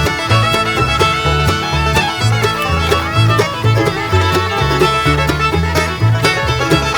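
Upbeat bluegrass background music, with fiddle and banjo over a bouncing bass line.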